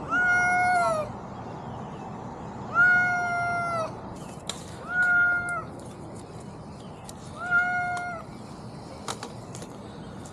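A frightened domestic cat stuck high in a tree meowing: four long, drawn-out meows, each held on one pitch, about every two to three seconds. A few faint sharp clicks fall between them.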